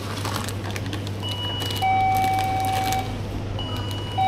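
Electronic beeper sounding a repeating two-part signal: a short high tone that steps down into a longer, louder, lower beep, heard about a second in and again starting near the end, over a steady low hum.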